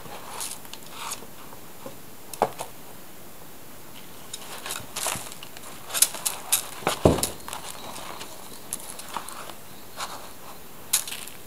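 Two kittens wrestling in a litter tray: scattered scratching and scrabbling of paws in the cat litter and on the newspaper, with bumps against the tray. The sounds come in irregular bursts, busiest around the middle, with a dull thump about seven seconds in.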